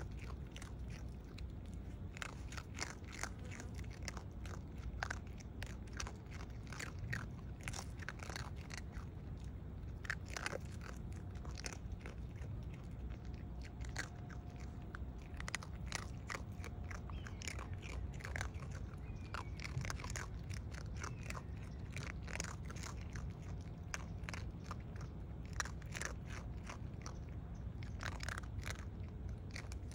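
Two raccoon dogs chewing dry kibble, a run of irregular sharp crunches as they bite and chew, over a low steady rumble.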